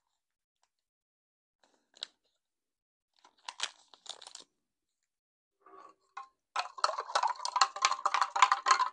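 A spoon stirring powder into water in a glass mug, clinking rapidly against the sides, from about two-thirds of the way in; this is the loudest sound. Before it come a light tap and two short bursts of crinkling as the powder is shaken out of its foil packet.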